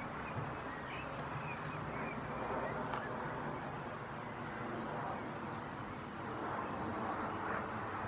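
Outdoor garden background: a steady, even hiss and low rumble, with a few faint high chirps about a second in.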